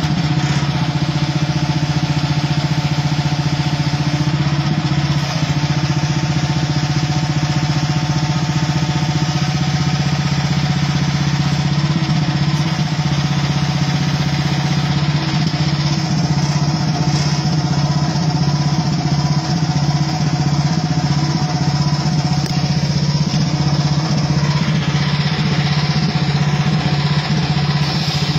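Hightop HT10 mini excavator's engine running at a steady, even pitch while the machine digs.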